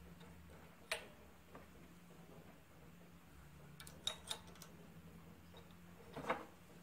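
Small metal parts of the magneto trip mechanism clicking and clinking as they are fitted by hand onto the cast-iron side cover of a McCormick-Deering Type M engine. The clicks come as one sharp click about a second in, a quick run of three or four around four seconds in, and a louder clink near the end, over a faint steady low hum.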